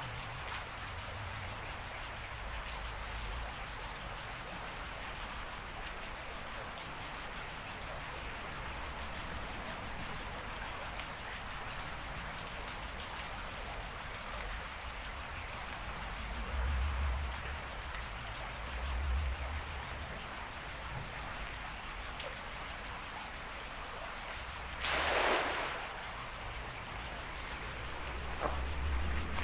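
Steady rush of flowing river water, with two brief low rumbles near the middle. About four seconds before the end, a short splash as a cast fishing net lands on the water.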